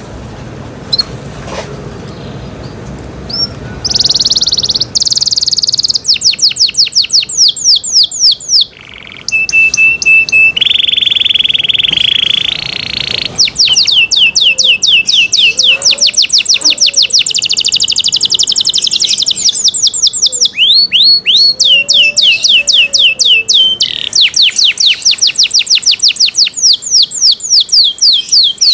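Domestic canary singing in long, fast trills of rapidly repeated high notes. About four seconds in the song gets loud, and partway through it breaks for a short steady whistle and a held buzzy note.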